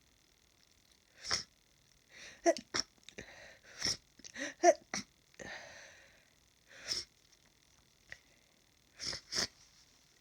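A person's hay-fever sneezing fit: sneezes and short sniffs in quick succession through a congested nose, with quiet gaps between.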